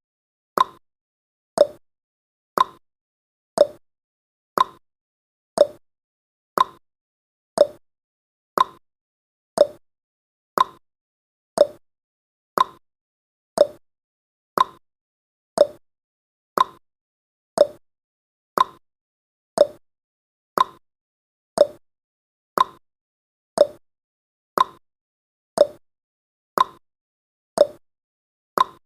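Ticking sound effect of a countdown timer: a sharp clock-like tick once every second, alternate ticks slightly higher and lower in pitch, like a tick-tock.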